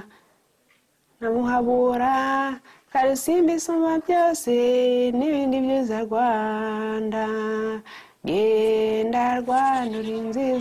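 A woman singing a slow melody of long held notes, phrase by phrase with short breaks, after a brief pause at the start.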